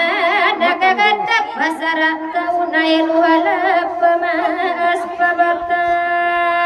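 A high voice singing a slow melody with vibrato over steady sustained accompaniment, ending on a long held note near the end.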